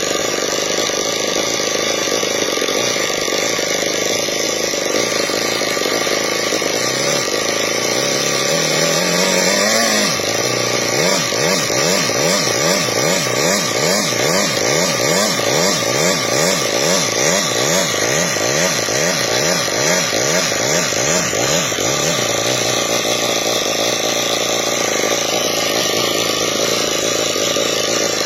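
Homemade single-cylinder engine running. It idles steadily, revs up once, then is blipped in quick even rises and falls, about two a second, for around ten seconds before settling back to a steady idle.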